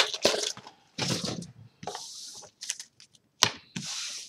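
Trading-card booster packs and cards being handled: several short papery rustles and crinkles, with a sharp tap about three and a half seconds in.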